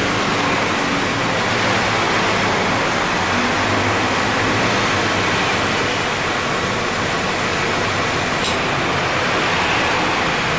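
2016 Subaru XV running with its air conditioning on: a steady rushing noise with a faint high whine, and a single click about eight and a half seconds in. The AC compressor runs without any abnormal noise.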